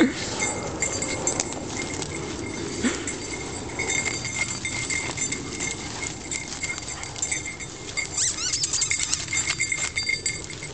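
Footsteps and a dog moving through dry fallen leaves and twiggy undergrowth: continuous rustling and crunching with small snaps. A faint high ringing comes and goes throughout.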